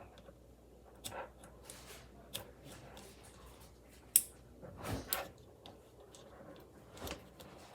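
A broken fidget toy being handled: scattered small clicks and rustles, with one sharp click about four seconds in.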